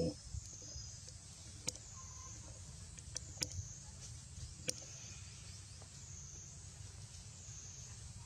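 Outdoor background: a high, steady buzz that swells and fades about every second and a half over a low rumble, with four short sharp clicks between about two and five seconds in.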